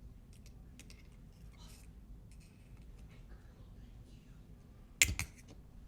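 Small metal clicks and light scraping as tools work inside a disassembled Master Lock 220 padlock to pull its actuator out, with a sharp, loud cluster of clicks about five seconds in.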